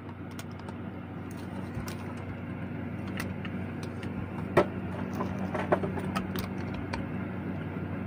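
A few short clicks and taps of plastic parts and a cable plug being handled and fitted on a phone rig with a clip-on microphone and LED light, over a steady low hum.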